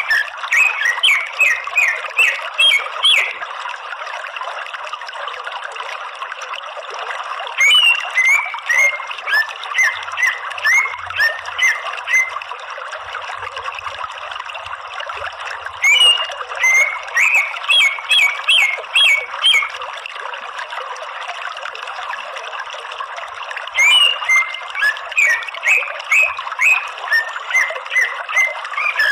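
Greater green leafbird (cucak ijo) calling in four bursts of rapid, sharp, up-and-down notes, each lasting a few seconds with a quieter gap of about four seconds between, over a steady background hiss.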